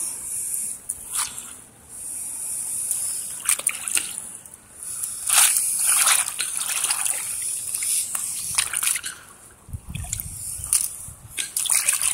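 Rubber boots wading through shallow pond water, sloshing and splashing with each step in an uneven run of swishes.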